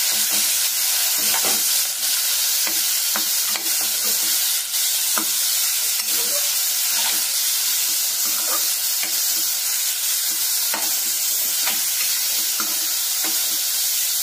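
Boneless chicken pieces sizzling as they fry in hot oil in a pan. They are stirred throughout, with a utensil scraping and knocking against the pan a little more than once a second.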